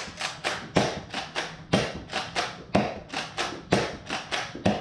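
X-Shot Meteor foam-dart blaster being primed and fired in quick succession: a sharp clack about once a second, with lighter mechanical clicks in between.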